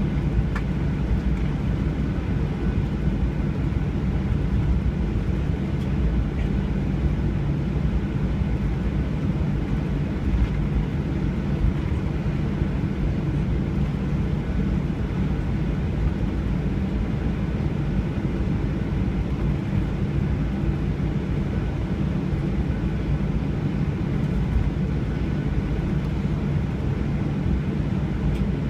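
Jet airliner cabin noise: a steady drone of engines and rushing air, mostly low rumble with a faint steady whine above it.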